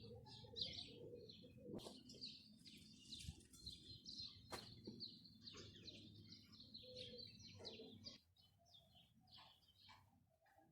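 Faint outdoor birdsong: many small birds chirping and twittering in short high calls, over a low steady hum that stops about eight seconds in, after which it goes quieter. Two brief knocks stand out.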